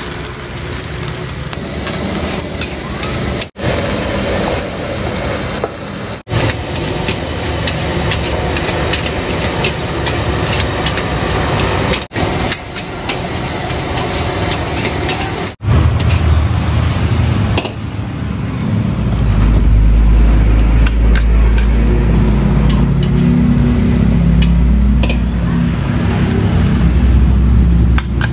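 Metal spatula and ladle scraping and clattering in a wok as fried rice is stir-fried, with sizzling. From about halfway a heavy low rumble joins in and stays to the end.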